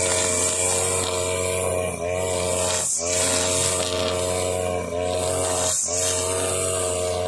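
Husqvarna 542RBS backpack brush cutter's two-stroke engine running at cutting speed, spinning 2.2 mm nylon trimmer line through roadside grass with a hissing whir. The engine note dips briefly every second or two and recovers as the line is swung through the grass.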